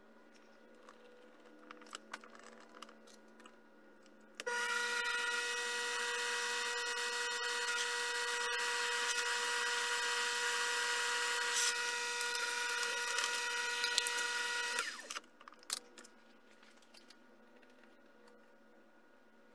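Miniature metal lathe motor switched on and running at a steady speed for about ten seconds, with a steady whine, then switched off. The lathe spins a metal blank in its chuck while a center drill in the tailstock is brought to its end. Light clicks of handling the tooling come before and after.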